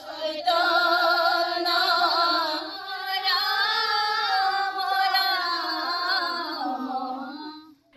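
Several women singing an Assamese devotional hymn (ghosa) together as a prayer, in slow, long-drawn notes that begin about half a second in and fade out just before the end.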